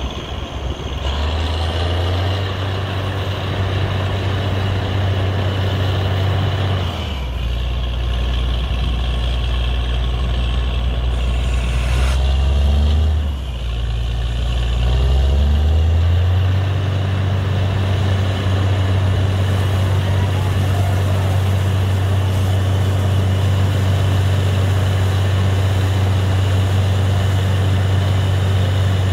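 Heavy diesel engine of a borewell drilling rig running hard and steady. It drops in pitch about seven seconds in and again around twelve to fifteen seconds, revs back up with a rising whine, and then holds steady.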